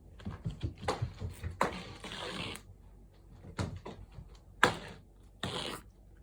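Cats playing with a feather wand toy: irregular light thumps and rustles, with a sharp knock about four and a half seconds in.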